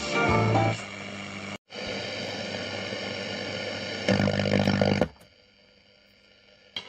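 Loudspeaker of a 1953 Loewe Opta Meteor 526W tube radio as its knob is turned off a station. The music fades out, the sound drops out for a moment, then comes steady static with a few whistling tones, louder for about a second around four seconds in. It then falls to a faint hiss, with a click near the end.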